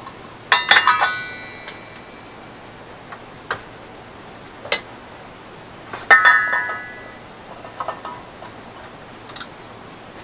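Sheet-metal muffler pieces clanking and ringing as they are handled and set down. There is a quick cluster of knocks about half a second in, single knocks around three and a half and five seconds, another ringing clank about six seconds in, and a few lighter taps near the end.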